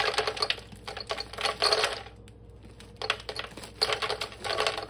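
Diced red potato cubes poured from a bag into a plastic blender jar, clattering in two rapid runs with a pause of about a second between.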